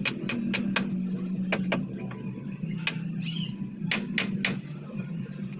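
Hammer blows driving nails into a wooden stud wall frame: quick knocks in short groups, four in the first second, a pair at about one and a half seconds, one near three seconds and three more at about four seconds, over a steady low hum.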